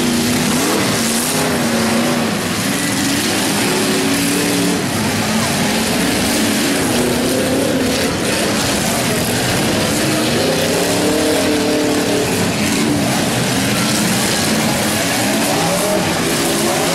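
Demolition derby cars' engines running hard, several at once, their pitch rising and falling as they rev.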